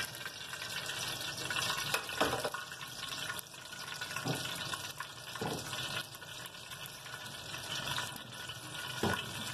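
Melted ghee pouring into a steel pot and heating in it, a steady faint hiss with a few soft knocks.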